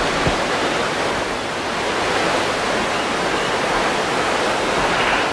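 Steady, even rush of falling water.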